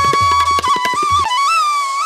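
Background music: a flute-like melody holding a note over hand-drum strokes, and the drums drop out about a second in, leaving the held note.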